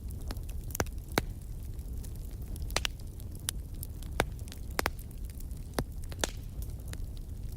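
Wood fire burning in a fireplace: a steady low rumble of the flames with scattered sharp crackles and pops, a dozen or so, irregularly spaced.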